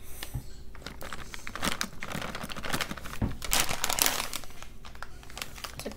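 A plastic snack bag crinkling as it is handled and pulled open, a run of irregular crackles.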